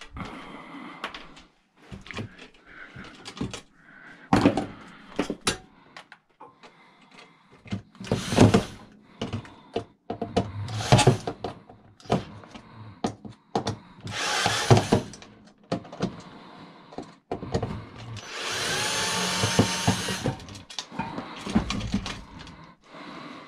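Cordless drill backing screws out of a garage door opener's sheet-metal chassis. It runs in several short bursts, with one longer run of about two seconds near the end, and parts and tools clatter and click on the bench between the bursts.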